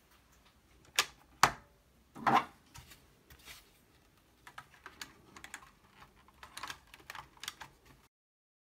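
Hard plastic clicks and knocks as the Apple IIc's plastic top case is handled and fitted down onto its base: two sharp clicks about a second in, a heavier knock a moment later, then lighter scattered clicks and rattles. The sound cuts off suddenly near the end.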